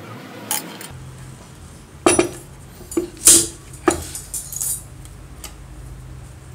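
Metal parts of an old compressor pump and a wrench clinking and knocking against each other and a stone work surface as they are handled, a quick string of sharp clinks, the loudest about three seconds in.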